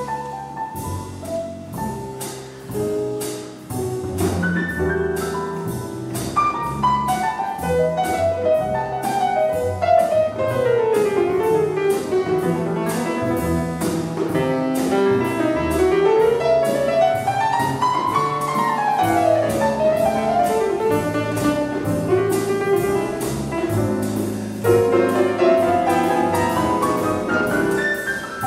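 Jazz grand piano playing fast runs that sweep down and back up, over bass notes and regular drum or cymbal strokes keeping time.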